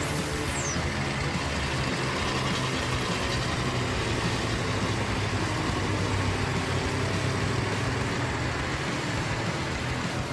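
Logging truck engine running steadily under load.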